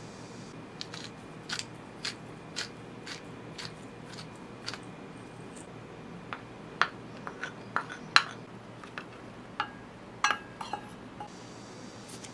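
Light, irregular clicks and taps of kitchen utensils and a seasoning container against a ceramic bowl of mashed potato, with a few louder knocks near the middle and one with a brief ring.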